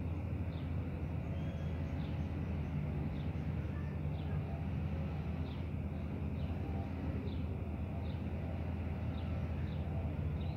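A steady low rumble, like distant traffic, with short high chirps of a small bird recurring every second or so.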